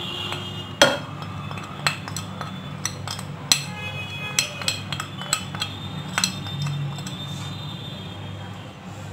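Small glass bowls clinking and tapping against a large glass mixing bowl as dry spices are tipped out of them: a string of sharp glass clinks, the loudest about a second in, over a low steady hum.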